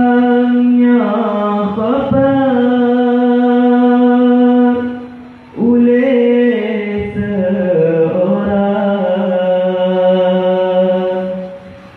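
Islamic devotional chanting for the Maulid, the Prophet's birthday: a voice sings two long phrases on sustained, slowly stepping notes, with a short breath about five seconds in.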